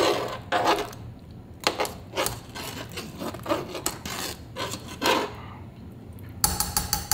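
A spoon scraping and stirring through a thick split-pea stew in a pot, in repeated strokes roughly every half second to a second. Near the end comes a louder rattle with a ringing note.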